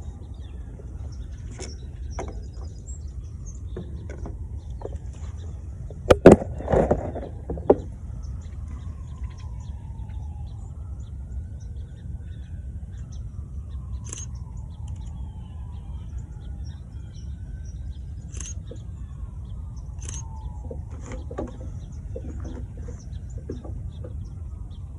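Outdoor ambience with a steady low rumble, a cluster of loud knocks and rustling about six seconds in, and faint falling bird calls repeated every few seconds.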